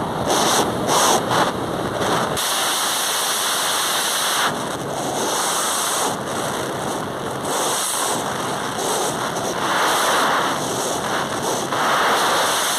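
Wind rushing and buffeting over the microphone of a Honda Biz motorcycle ridden at about 100 to 125 km/h. It gusts hardest in the first two seconds and then settles into a steadier rush.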